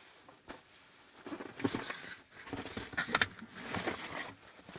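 Cardboard subscription box being handled and opened: irregular rustling, scraping and sharp knocks of the packaging, loudest about a second and a half and three seconds in.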